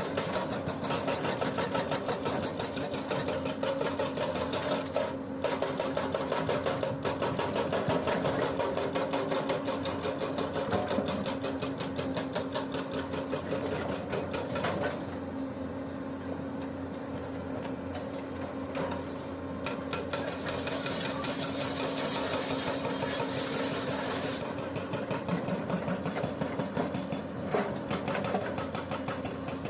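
Hydraulic breaker on a Hyundai R210LC-7H excavator hammering in a rapid, steady rhythm of blows, with the excavator's diesel engine running underneath. The hammering goes quieter for several seconds around the middle.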